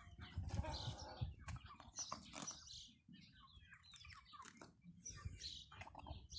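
Wyandotte chickens calling: a scatter of short, high chirps and clucks, with a low rumble underneath.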